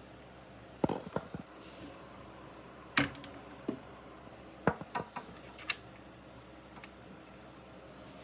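Scattered sharp clicks and knocks from hands working a 3D printer's filament path during a filament change, the loudest about three seconds in. A steady low hum runs underneath.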